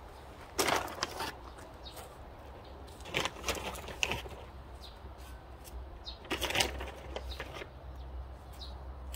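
Black plastic mulch film crinkling and rustling in a few short crackly bursts a few seconds apart.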